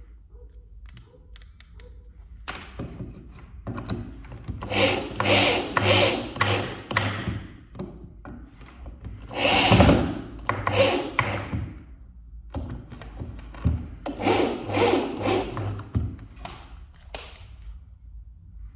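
Kolner KID 600V electric drill driving screws: three runs of the motor, each about two to three seconds long, with short clicks and knocks between them.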